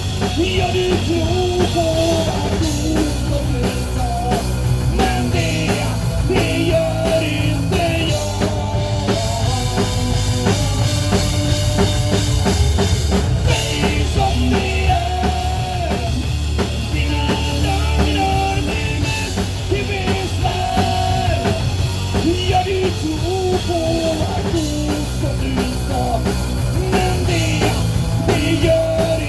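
Rock band playing a song: drum kit keeping a steady beat under a full band, with a wavering melody line carried over the top.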